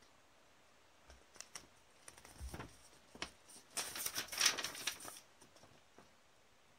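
Paper instruction sheet being handled and turned over: scattered rustles and crinkles, densest and loudest about four to five seconds in.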